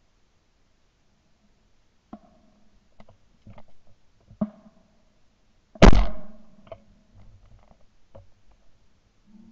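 A single loud shotgun shot about six seconds in, sharp at the start and dying away over about a second. A few fainter sharp knocks come in the seconds before it.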